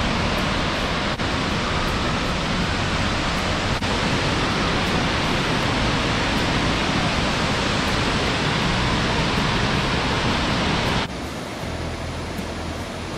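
Steady rush of Burney Falls, a tall waterfall pouring into its plunge pool, heard as an even wash of water noise. It drops to a quieter level about eleven seconds in, with a cut to a different view of the falls.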